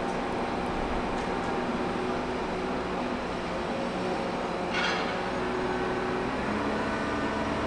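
Rail vehicle engine running steadily, with a brief hiss about five seconds in.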